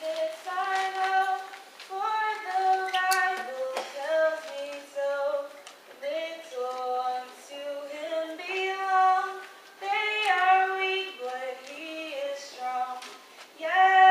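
A young female singer singing a solo into a microphone, holding long notes with short breaks between phrases.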